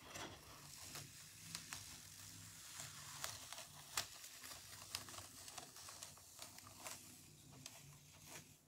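Faint crackling and ticking of a sticky adhesive silkscreen stencil being slowly peeled off a chalkboard surface. It clings hard because it was not fuzzed enough before use.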